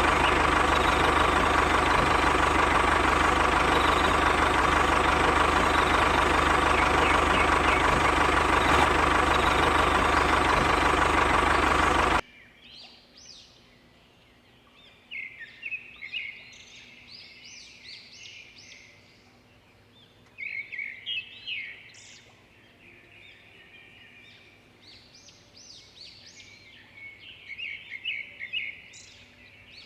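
A loud, steady machine running with a constant hum, cutting off suddenly about twelve seconds in. After that, birds chirping in short bursts over quiet.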